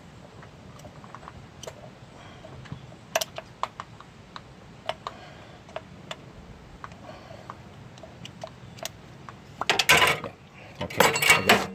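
Scattered light clicks and knocks of small parts and tools being handled on a workbench, with louder clattering and rustling near the end.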